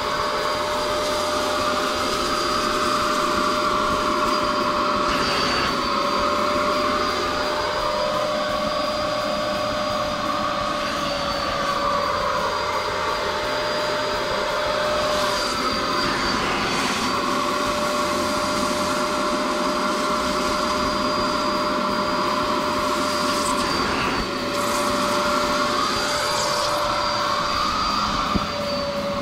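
A vacuum cleaner running steadily with a high motor whine. The pitch of its rushing air wavers now and then as the nozzle is worked over a surface.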